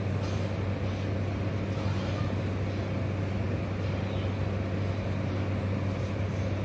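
A steady low hum with an even background hiss that does not change.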